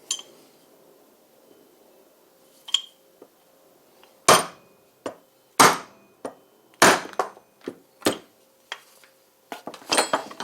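A series of sharp separate knocks, struck roughly once every second or so while wire is being cut, over a faint steady hum.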